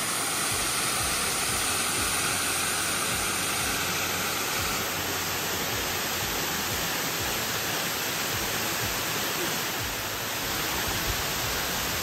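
Waterfall pouring over rock into a pool: a steady rush of falling water.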